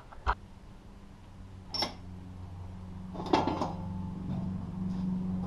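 Handling noise: a knock, a ringing metallic clink about two seconds in, then a cluster of clattering knocks a little past halfway. Under them a steady low hum grows louder toward the end.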